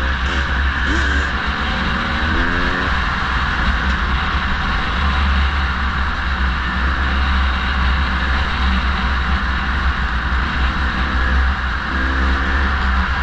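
Motorcycle engine running under way, rising in pitch as it revs up through the gears in the first few seconds and again near the end, over heavy wind noise on the microphone.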